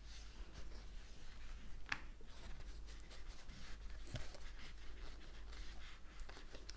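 Faint rustling and scratching of T-shirt yarn being worked with a crochet hook, stitches pulled through and tightened, with a light tick about two seconds in.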